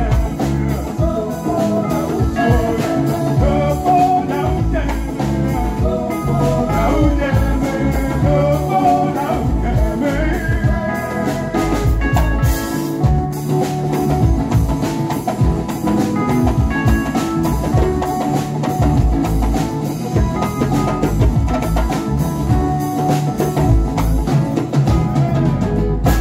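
Live band music: drums keep a steady beat under a strong bass line and a wavering melody line.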